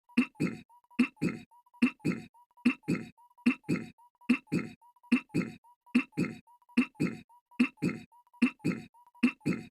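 Goofy's cartoon voice clearing his throat, a two-part "a-hem" looped over and over, just over once a second. A faint steady high tone runs underneath.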